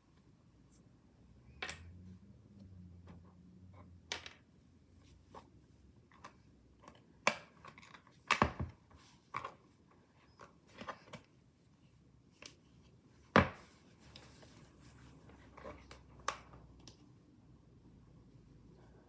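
Irregular clicks, taps and small knocks of hands handling slime and its containers, with a few sharper knocks about seven, eight and a half and thirteen and a half seconds in.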